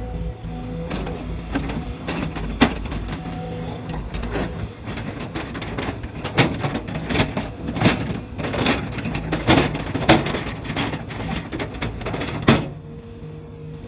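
20-ton excavator's diesel engine running steadily while its bucket works soil, with repeated sharp knocks and rattles. The knocking stops near the end, leaving the engine running alone.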